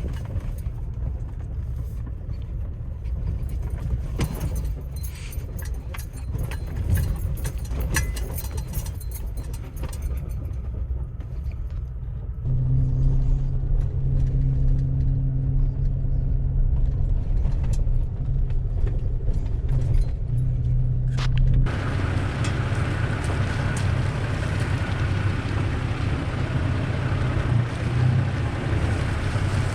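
Toyota Tacoma pickup driving on a rough trail: the engine runs under a clatter of rattles and small knocks. Partway through it settles into a steadier, stronger engine hum, and about two-thirds of the way in a loud rushing noise, like wind, suddenly takes over.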